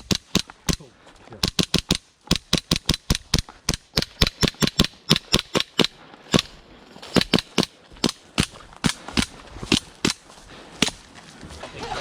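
Airsoft guns firing a rapid string of single shots, a few dozen sharp cracks in quick irregular bursts, with a short pause about halfway through.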